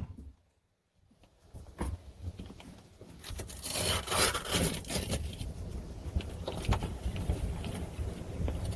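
About a second of silence, then scraping and rustling with small knocks as a TV antenna and its cable are tucked back up through a camper's ceiling.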